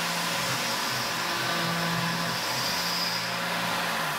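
Tormach 770 CNC mill running a finishing pass with an end mill in aluminium: a steady hiss of spindle and cutting noise over a low hum.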